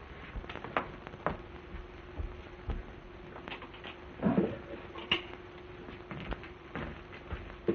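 Faint crackle and scattered clicks over a steady low hum, the surface noise of an early-1930s optical film soundtrack, with a brief soft sound about four seconds in.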